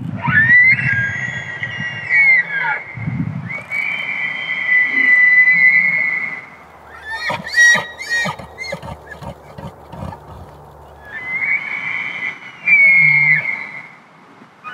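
Bull elk bugling in the rut: three long, high whistling bugles, and between the second and third a quick run of rapid grunts. The bugle is the bull's rut call, advertising to cows and challenging rival bulls.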